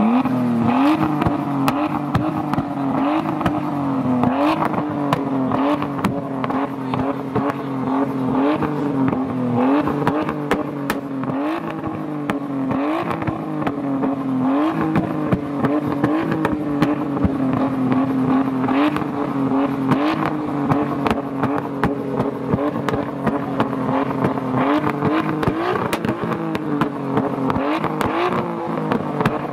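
Nissan Skyline R33's straight-six engine held at high revs. The revs dip briefly and climb back again about every second and a half, with sharp crackling pops from the exhaust as it spits flame.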